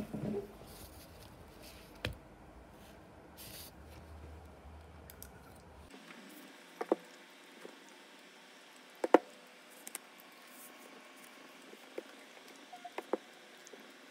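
Quiet handling sounds of a spoon cutting into a soft, sticky dessert in a foam tray, then a few scattered sharp clicks and taps, the loudest about nine seconds in.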